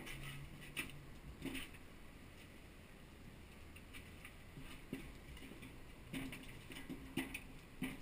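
Small wood fire in a metal fire pit being poked and stirred with sticks: faint scattered knocks and crackles, about half a dozen, as the sticks shift the burning wood and embers.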